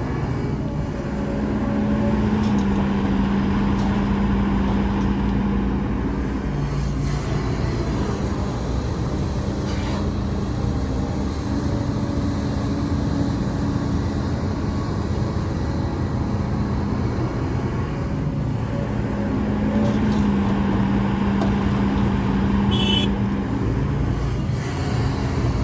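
Diesel engine of heavy earthmoving machinery running steadily under working load, its note swelling and shifting a couple of times.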